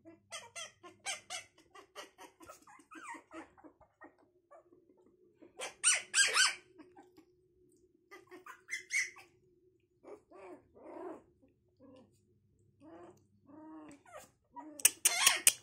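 Young puppies yipping and whimpering in short, high-pitched calls, with a few louder yelps in the middle. Near the end the sound gets louder with a rapid run of sharp yaps, several a second.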